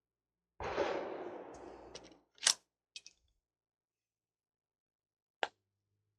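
A pistol shot about half a second in, with a ringing tail that fades over a second or so. Then a few sharp clicks and clacks spread over the next few seconds, the sounds of an emergency magazine reload.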